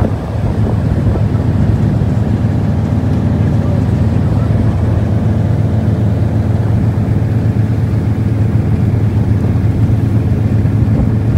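A river cruise boat's engine running steadily, a low, even drone that does not change.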